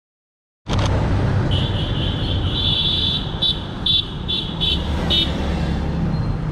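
Busy street traffic running, cutting in abruptly just under a second in. Over it, a shrill high trilling tone runs for about a second and a half, then five short shrill blasts follow.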